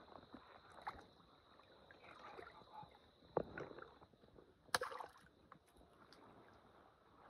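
Shallow water sloshing and splashing faintly around a person wading and working at the water's edge. A few short sharp splashes or knocks stand out, the loudest about three and a half and nearly five seconds in.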